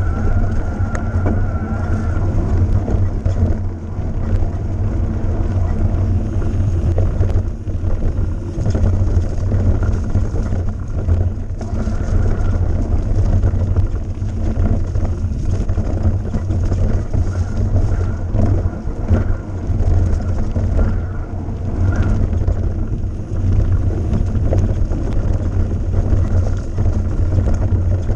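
Mountain bike riding over a rough dirt trail, heard from a camera mounted on the bike or rider: a steady low rumble with frequent knocks and rattles from the bumps.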